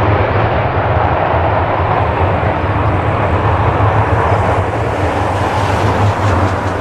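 Steady jet engine noise from a Boeing C-17A's four turbofans, a loud even rush over a low hum.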